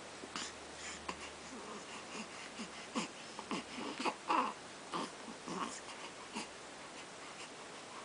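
A one-month-old baby making a string of short, breathy vocal sounds and small squeaks, several falling in pitch, loudest about four seconds in and stopping after about six and a half seconds.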